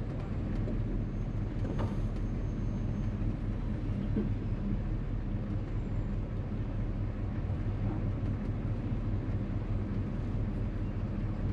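Classic car's engine running steadily, with road noise, heard from inside the car while cruising.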